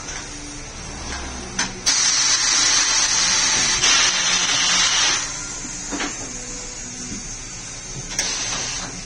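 Compressed air hissing during a tyre change: a loud blast of about three seconds, then a shorter one near the end, with a few sharp clicks in between.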